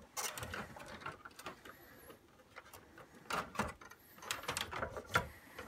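The plastic housing and internal parts of a Victor Clavia RC-G15MD boombox being handled during reassembly: irregular clicks, knocks and rubbing of hard plastic, in a few clusters.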